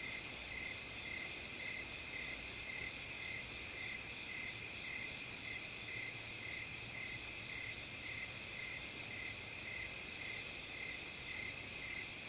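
A chorus of autumn crickets in a rice-terrace field: steady high trills overlaid with a chirp repeating about twice a second.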